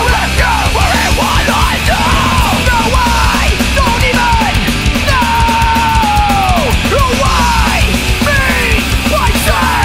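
Hardcore punk song: the full band playing with a yelled vocal whose notes slide and fall in pitch, one held longer about halfway through.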